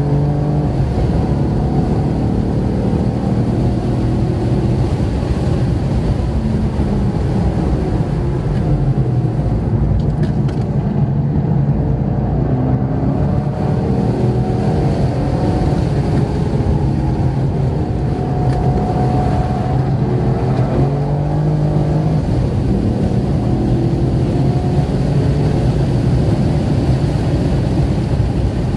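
2016 Holden Commodore SS's 6.2-litre V8 engine heard from inside the cabin under hard track driving, its pitch rising and falling through the gears and corners, over steady tyre and road noise.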